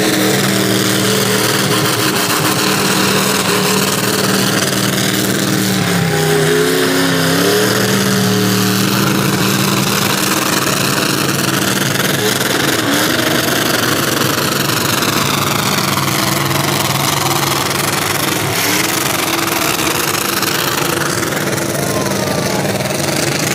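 Rat rod doing a burnout: its engine held at high revs with the revs dipping and climbing back a couple of times, over the steady hiss of the rear tyres spinning and smoking on the pavement.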